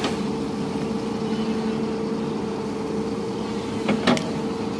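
Hydraulic excavator's diesel engine running steadily with a constant hum, and two sharp knocks about four seconds in.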